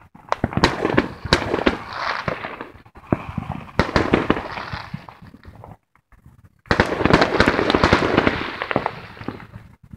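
Fireworks going off: dense runs of sharp cracks and pops over continuous crackling. A short break comes a little after halfway, then the loudest and densest run of cracks follows.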